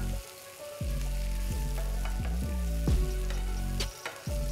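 Large mushroom pieces sizzling in hot oil in a pan as they are stirred in with onion, ginger and garlic.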